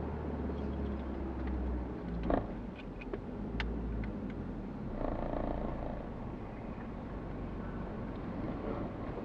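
Low, steady engine and road rumble heard from inside a car moving slowly, with a few sharp clicks about two to four seconds in.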